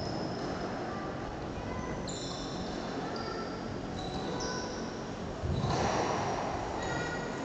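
Squash players' shoes squeaking on the wooden court floor during a rally: many short, high squeaks scattered through, over a steady background noise. A louder rush of noise comes in about five and a half seconds in.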